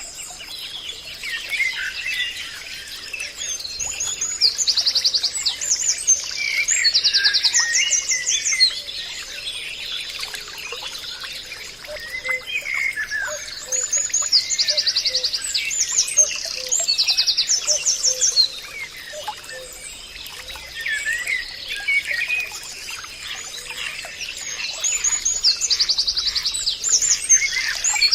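Forest birdsong: several birds calling, one repeating a phrase of rapid, high trilled notes every ten seconds or so among scattered lower chirps, over a thin steady high tone.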